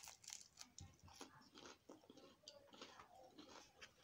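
A person biting into a waffle and chewing it close to the microphone: a louder bite at the start, then a steady string of faint, irregular mouth clicks and smacks.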